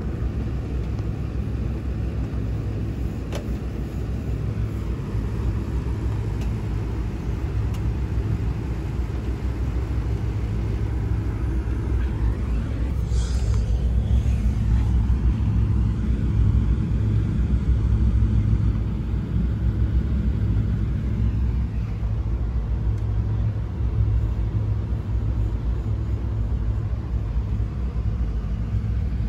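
Steady low rumble of a houseboat underway, its engine droning as heard inside the cabin. About halfway through comes a brief rustle as the phone brushes against fabric.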